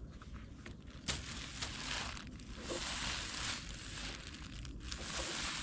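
A large knife scraping and cutting into a whole watermelon's rind, with the plastic bag under the melon crinkling: a rough, scratchy rustle that comes and goes.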